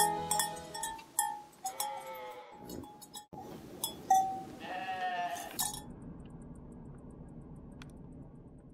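Sheep bleating a few times, the last bleat the longest. After about six seconds only a faint hush remains.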